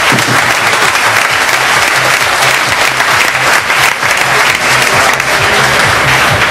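Audience applauding: a dense, continuous patter of many hands clapping.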